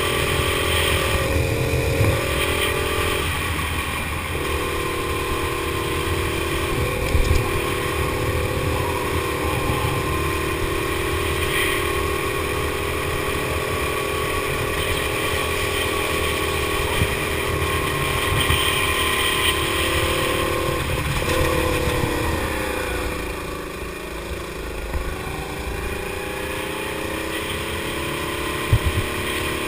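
Go-kart engine running at speed, recorded from on board the kart. Its pitch holds steady for most of the time, falls off about two-thirds of the way through, then climbs again, with a couple of brief knocks.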